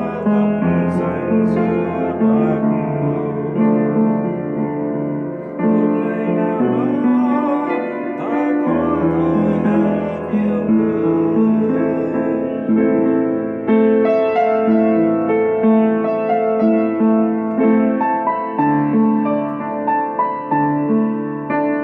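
Solo piano playing an instrumental passage: chords in the middle range over held bass notes that change every few seconds.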